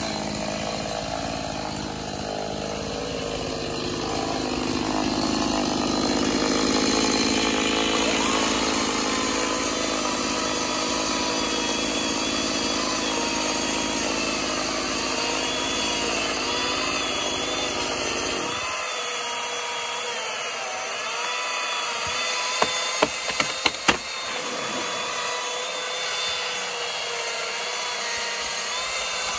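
Chainsaw running and cutting through a dead tree limb, its engine pitch wavering up and down as it works through the wood. About three-quarters of the way in, a quick run of sharp knocks stands out over the saw.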